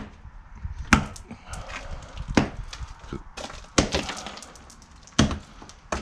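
Long steel bar jabbed by hand into broken concrete, a series of sharp strikes about one every second and a half as it chips and prises chunks off the slab's edge.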